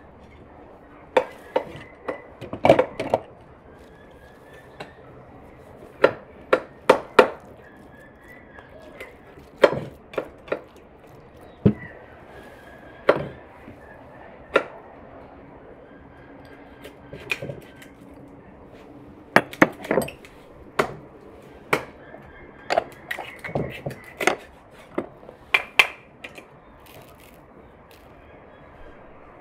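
Irregular sharp clinks and knocks of kitchenware being handled while minced meat is seasoned: a small glass spice jar, a little salt cup and a ceramic bowl on a wooden board, picked up, tapped and set down, some in quick runs of two or three.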